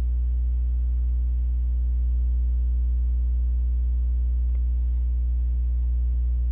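Steady low electrical mains hum with fainter overtones, from the recording setup, and one faint click about two-thirds of the way through.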